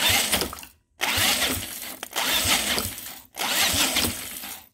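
Small single-cylinder engine being cranked over in three bursts without starting. It seems to be sparking at bottom dead centre instead of top dead centre, so the ignition timing is off.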